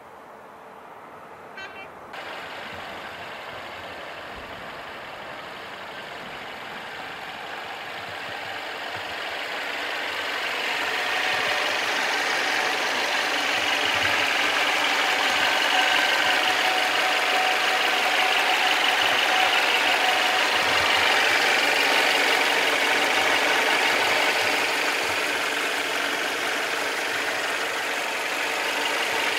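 Mercedes-Benz E200's M274 2.0-litre turbocharged inline-four idling steadily, growing louder over the first ten seconds or so. A brief clicking about one and a half seconds in.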